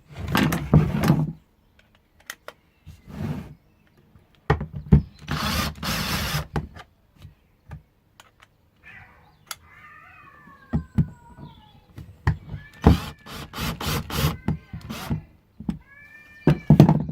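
A cordless drill driver backing screws out of a wooden former in short noisy bursts, among sharp knocks and clatter of wood and tools. A cat meows in gliding calls around the middle and again near the end.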